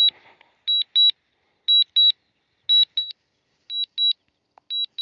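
High electronic double beep repeating about once a second from the DJI Mavic Air's flight controls (app and remote controller), the warning that sounds while the drone flies itself home on a low-battery auto Return to Home.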